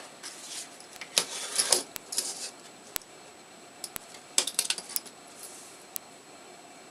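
Small hard parts clicking and clattering as they are handled, in two short flurries, with a sharp single tick about once a second.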